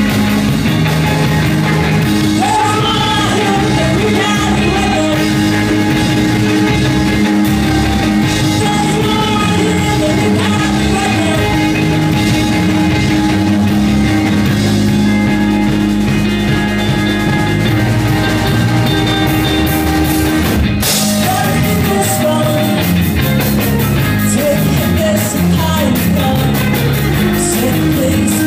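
A live rock band playing a song: electric guitars, electric bass and a drum kit, with a singer. About two-thirds through there is a sharp hit and the band moves into a new section.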